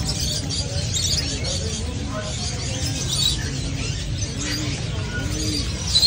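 Many caged small birds chirping at once over a steady low rumble of market noise. From about two seconds in, a low rising-and-falling call repeats roughly once a second.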